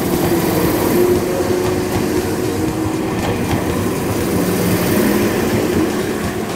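An Enoden (Enoshima Electric Railway) train passing close by, its wheels rumbling and clacking over the rails as the cars go past.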